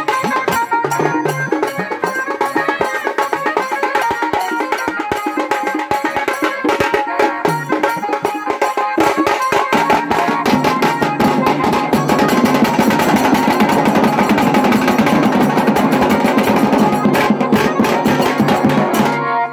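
Tasa and dhol drums of a Bengali wedding band (biyer bajna), beaten with sticks in a fast, dense rhythm, with a melody instrument playing over them. About halfway through the drumming thickens into a louder, near-continuous roll, and it cuts off suddenly near the end.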